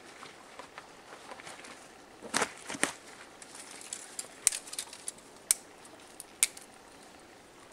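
Dry kindling and fatwood crackling and snapping as a small fire is lit and catches: a cluster of louder snaps about two and a half seconds in, then single sharp pops about once a second.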